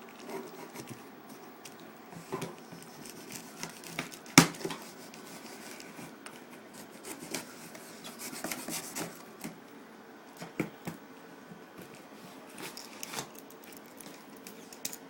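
Machete blade cutting and scraping through a cardboard shipping box: irregular scrapes and clicks, with one sharp knock about four and a half seconds in.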